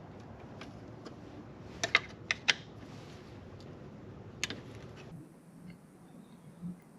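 A few sharp clicks and taps of hand tools on fasteners: four close together about two seconds in and another about four and a half seconds in, over a faint steady hiss that cuts off suddenly about five seconds in.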